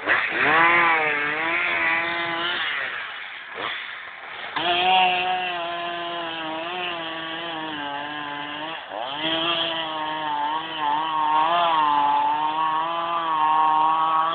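Two-stroke chainsaw running at full throttle, cutting wood; its pitch sags and recovers as the chain bogs in the cut, with a short let-off of the throttle about four seconds in.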